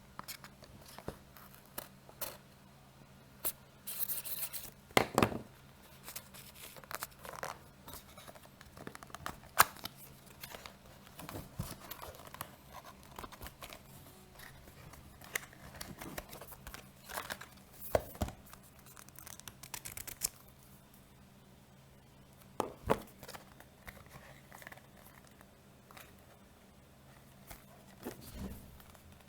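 A small fitness-band retail box being unpacked by hand: irregular tearing, crinkling and scraping of paper packaging and its seal, with scattered clicks and a few sharper knocks as the box is handled.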